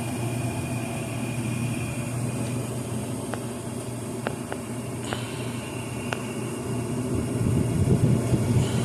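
Gas furnace running in its start-up cycle: the draft inducer fan and burners make a steady hum, with a few faint ticks. In the last couple of seconds a louder rush of air builds as the main circulating blower starts up.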